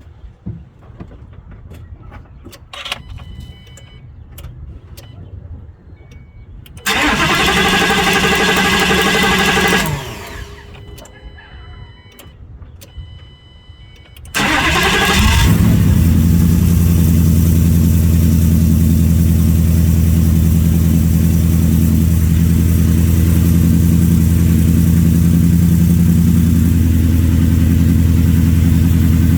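Ford Gen 3 Coyote 5.0 V8 being started after a high-pressure fuel pump replacement: light clicks and short tones while the fuel system is primed, one crank of about three seconds that does not catch, then a second crank that catches about halfway through, and the engine settles into a steady idle.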